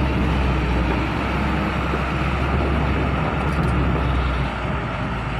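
Diesel engine of a large box truck running as the truck drives slowly up a ferry's loading ramp. It makes a low, steady sound that eases off about four and a half seconds in.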